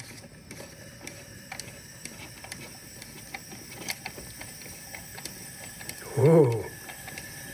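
Leak-down test on cylinder 4 of a first-generation MINI Cooper's four-cylinder engine: scattered mechanical clicking over a low hiss of air. About six seconds in comes a short vocal exclamation, and a steady high whistle begins as compressed air escapes into cylinder 3 and the cooling system, which the mechanic takes for a failed head gasket.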